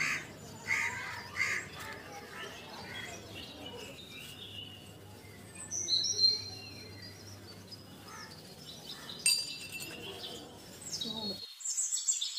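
Small birds chirping in the background, with a few light clicks and clinks from handling a small steel cup on a wooden board.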